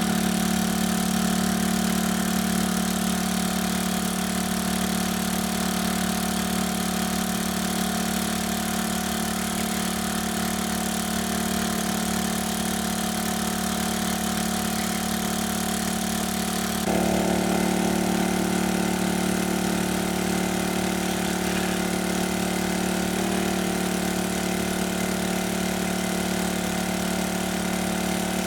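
A small engine running steadily at an even speed. Its sound changes abruptly and grows slightly louder about seventeen seconds in.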